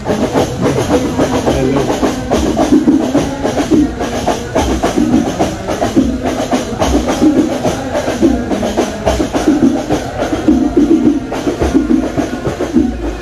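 Percussion music: drums beating in a fast, dense rhythm.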